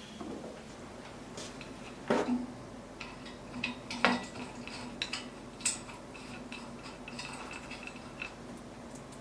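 Scattered light clinks and knocks of small hard objects being handled and set down, with two louder knocks about two and four seconds in.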